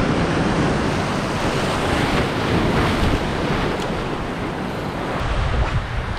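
Ocean surf breaking and washing over a rocky shore ledge, with wind buffeting the microphone.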